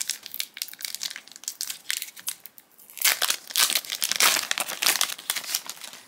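Foil trading-card booster pack wrapper crinkling as it is torn open and pulled apart, the crackling rustle heaviest in the second half.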